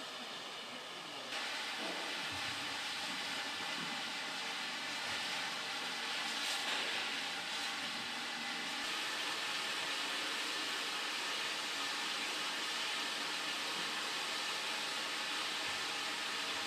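Steady hiss of escaping steam from steam locomotive M4, stepping up a notch about a second in and then holding even.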